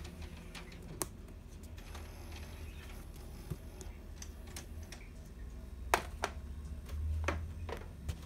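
Clicks and taps from a VHS tape case being handled. There is one sharp click about a second in and a cluster of louder ones between six and eight seconds in, over a low rumble of handling on a hand-held microphone.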